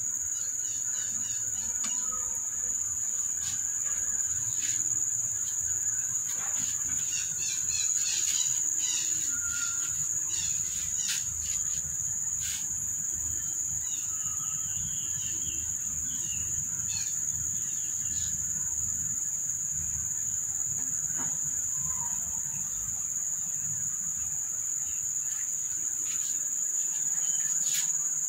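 Steady, high-pitched insect drone with no break, and small birds chirping in short runs, mostly in the first half, plus a few light clicks.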